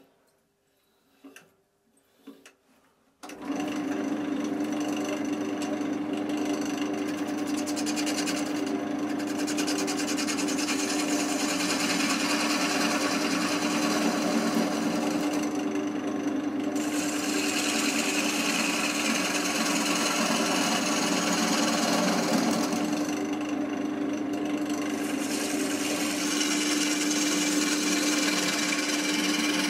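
A few light clicks, then about three seconds in a wood lathe starts and runs with a steady hum while a gouge cuts into the spinning oak blank. The cutting hiss comes and goes as the tool is worked.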